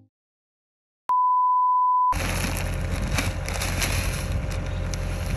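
A single steady electronic beep, one pure tone lasting about a second, after a second of silence. Then outdoor noise with a low rumble and scattered crunching as a man handles a feed bag in the snow.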